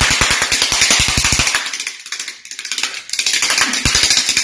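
Handheld noisemaker rattled fast near puppies, a loud rapid clatter of about a dozen clicks a second that stops about two seconds in and starts again about a second later.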